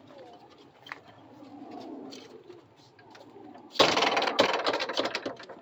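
Faint, low cooing like a dove's in the first few seconds. About four seconds in comes a sudden loud burst of rustling noise, lasting under two seconds, with clicks through it.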